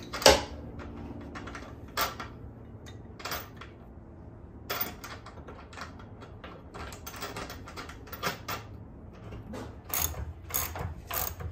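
Irregular metallic clicks and clinks of wrenches on a nut and bolt as a steel L bracket is bolted to the Happy Jack bed-lift frame, the sharpest click about a third of a second in.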